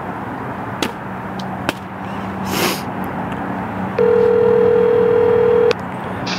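Smartphone ringback tone heard through the phone's speaker while a call rings out: one steady ring about four seconds in, lasting just under two seconds. A few light clicks and a short rustle of handling sound between rings.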